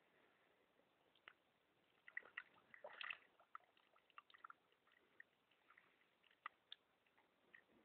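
A horse drinking from a pond with its muzzle in the water: faint slurps, drips and small splashes, busiest about two to three seconds in.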